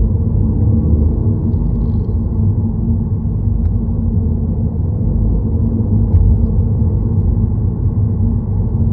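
Steady low rumble of a car in motion, engine and tyre noise on the road heard from inside the cabin.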